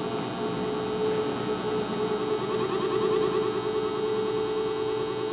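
Live electronic noise music from small electronic devices: a steady humming drone of layered held tones, joined about two seconds in by a fast repeating flutter higher up.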